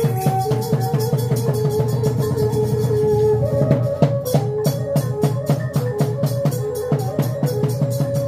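Khmer chhay-yam ensemble playing: a fast, steady drum beat with a held melody line over it that steps between a few notes.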